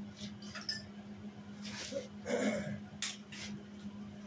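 A steady low electrical hum, with a few short rustles and knocks of handling close to the microphone.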